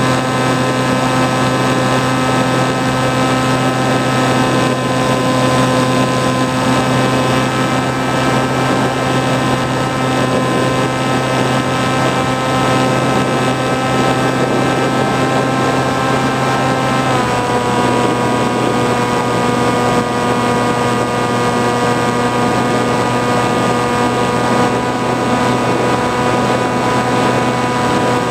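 Model flying wing's motor and propeller heard from the onboard camera: a steady, loud whine with many overtones over a rush of air. About 17 seconds in, the pitch steps down slightly as the motor speed drops a little.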